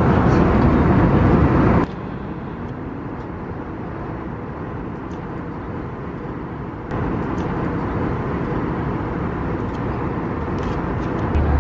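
Steady airliner cabin noise, a low rumble and hiss from the engines and air system. It drops abruptly in level about two seconds in and rises again about seven seconds in.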